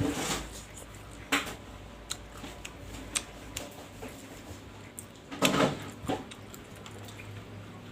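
Close-miked eating sounds of a person eating bakso meatballs: small clicks and mouth noises, with a few louder bursts of chewing and utensil contact, the loudest about five and a half seconds in.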